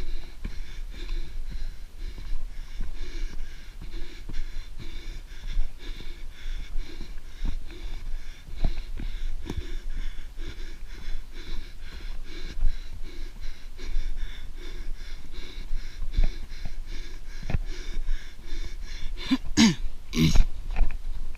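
A trail runner breathing in a steady rhythm while running, with footfalls and a low rumble on the handheld camera's microphone. A few louder, sharper sounds come about two seconds before the end.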